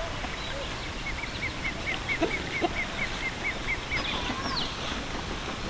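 Outdoor birdsong: one bird repeats a short high note about four times a second for a few seconds, over a steady background hiss. Farm fowl give a couple of brief low calls in the middle.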